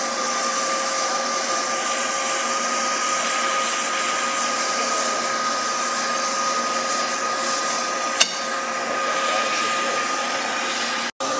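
Oxy-fuel gas torch flame hissing steadily, with a steady whistle in the hiss, as it heats a rusty steel suspension casing to free its tapered pins. A single short tick about eight seconds in.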